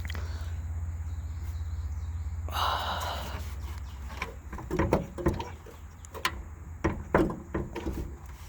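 Several sharp knocks and clunks, bunched in the second half, from someone trying to open a truck's hood that stays jammed shut, after a brief rustling rush, over a steady low rumble.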